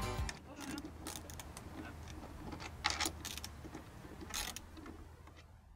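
Small clicks and knocks of hands working a fitting at the edge of a wheelhouse roof, with two sharper clicks about three and four and a half seconds in, over a low steady hum.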